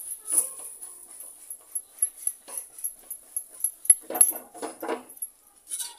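A dog whimpering, with a quick run of short whining cries about four seconds in.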